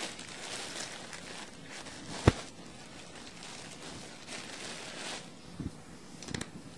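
Dry bread cubes and a clear plastic pot liner rustling and crunching softly as a hand presses them down, with one sharp knock about two seconds in and a few small clicks near the end.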